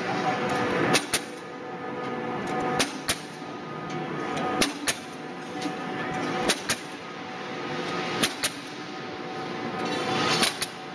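Handheld Kodi Klip tool snapping clips onto rebar intersections: a sharp double click about every two seconds, six times, as it moves along the bar.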